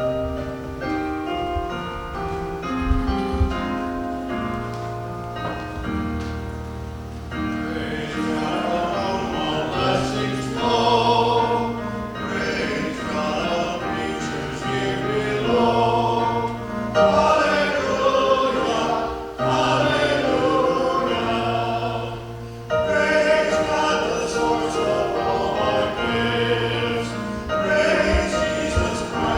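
Church worship music at the offertory: an accompaniment of held notes, with singing voices coming in about seven seconds in and carrying a melody over it.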